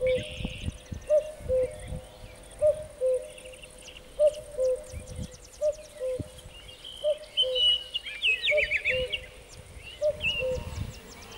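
Birds calling outdoors: a loud two-note falling call repeats about every second and a half, with fainter high chirps and quick trills from other birds around it and low rumbles underneath.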